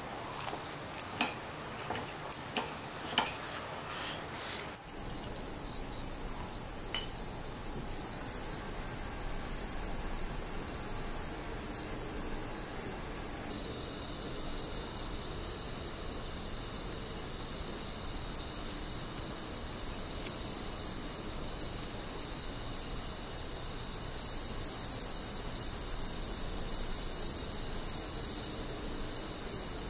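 A few light clicks and taps of chopsticks on ceramic tableware. About five seconds in, a chorus of crickets and other night insects begins suddenly and runs on: many overlapping high-pitched trills with a rapid pulsing beat.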